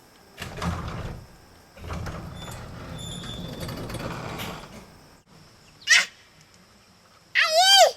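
An electric garage door opener running in two spells, the door moving with a steady low rumble. Near the end come short, high-pitched squeals, the loudest sounds here.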